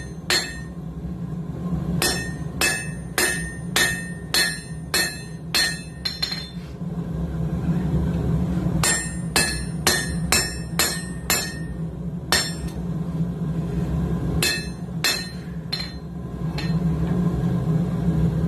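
Hand hammer striking hot coil-spring steel on an anvil, drawing out a tong blank: runs of ringing blows, about two a second, broken by short pauses, over a steady low hum.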